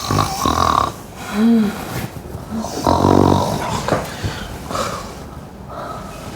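Person snoring: a string of separate rasping snores, one every second or so, with one brief rising-and-falling note among them.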